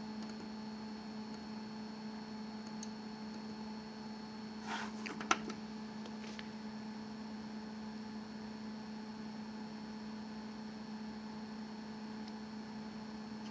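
HP LaserJet 5M laser printer humming steadily while it sits powered on. A couple of clicks from its control-panel buttons come about five seconds in.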